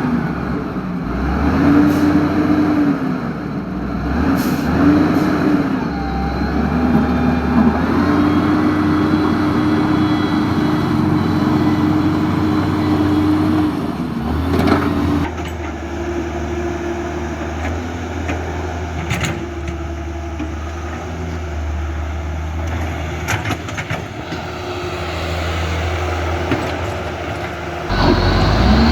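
Huina RC excavator's small electric motors whining as they start and stop while the arm and tracks work, over a steady low hum, with a few light clicks.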